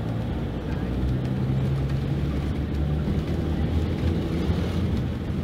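Mercedes-Benz OC-500RF-1842 coach's diesel engine running with a steady low drone.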